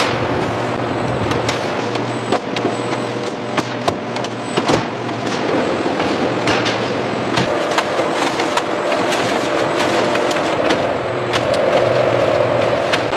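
Steady machinery noise with frequent sharp clicks and clattering knocks scattered through it.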